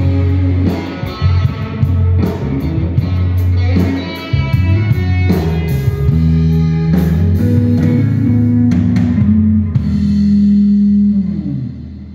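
Live rock band with electric guitars, bass guitar, keyboard and drum kit, playing through a PA. Near the end they hold a last chord that slides down in pitch and dies away.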